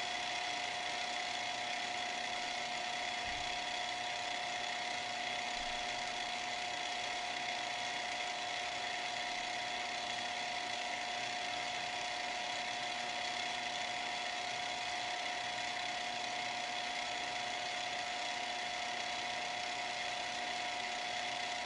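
Conn Stroboconn 6T strobe tuner's motor running steadily in motor warm-up mode: a continuous hum with a few steady whining tones, while its tuning-fork oscillator has not yet started.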